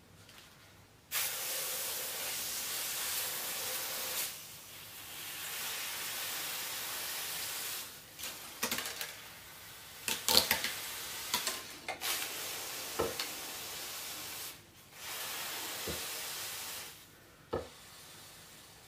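Heated 600 g steel hatchet head sizzling and hissing as it sinks into gelatin jelly, in several spells of a few seconds each, with crackles and sharp pops in between.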